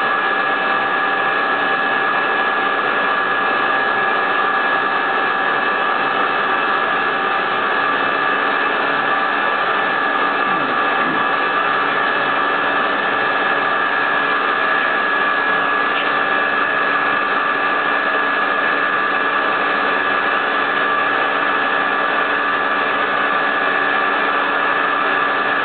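High-speed spindle of a CNC micro-milling machine running steadily with a micro end mill, a constant high whine over a steady hiss.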